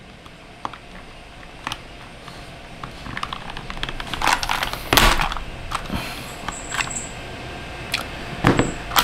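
Plastic clicks and scraping as a switch puller grips and tugs at a tightly held switch in a budget hot-swap mechanical keyboard, with louder crunching scrapes about four to five seconds in and again near the end.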